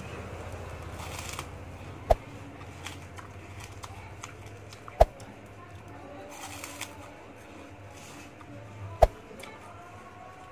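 Mouth sounds of a person biting and chewing a piece of colourful twisted cake over a low steady hum, broken by three sharp knocks: about two seconds in, about halfway, and near the end.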